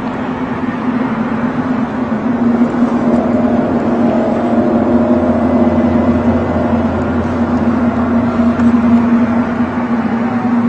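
A low, steady droning hum with several held tones layered over a noisy rumble, slowly growing louder over the first few seconds. It is one of the unexplained 'strange sounds' heard in the sky, the so-called skyquake.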